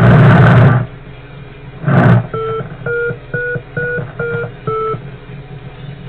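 Bursts of loud hissing static from the FPV video receiver as the glider's video link drops out, a long one at the start and a short one about two seconds in. Then six short, evenly spaced electronic beeps of one pitch, over a steady low hum.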